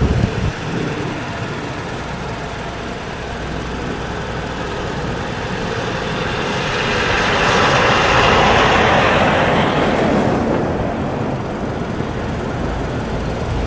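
Diesel freight locomotives, a GE ET44AC leading a GE C44-9W, running as they pull a freight train slowly along. A rushing noise swells up about seven seconds in and fades a few seconds later.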